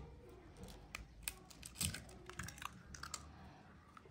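Eggs being cracked and opened over a stainless-steel mixing bowl: a scattering of faint, light clicks and taps of eggshell at irregular intervals.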